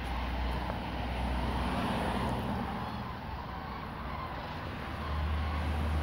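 Steady outdoor background rumble, swelling near the start and again near the end.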